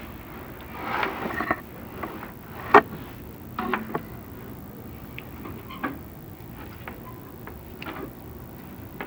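Chimney inspection camera and its cable knocking and scraping against clay flue tiles as it is lowered down the flue: a few scattered knocks and scrapes, the loudest a sharp knock about three seconds in.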